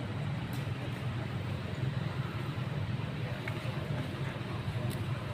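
Steady low rumble with an even hiss over it, typical of motor or traffic noise, with a few faint clicks.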